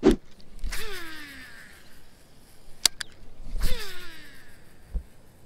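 Baitcasting reel spool whirring out twice as the lure is cast, each time a whine that falls in pitch as the spool slows, with a couple of sharp reel clicks just before the second cast.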